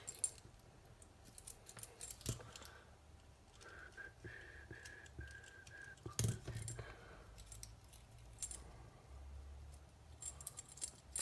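Small metal parts and tools clicking and clinking as they are handled during hand assembly, with a few sharper knocks. A thin, steady high tone runs for about two seconds, starting about four seconds in.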